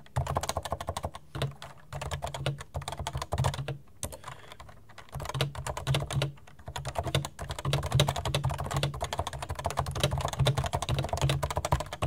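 Fast touch typing on a Realforce 87U tenkeyless keyboard with Topre switches, rubber domes over springs: a deep, thumpy keystroke sound with no click. The rapid keystrokes break off briefly about four seconds in, then carry on.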